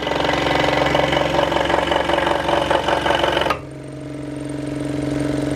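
Scroll saw cutting pine, with a loud, rapid chatter from the reciprocating blade. About three and a half seconds in, it drops to a quieter, steadier running hum.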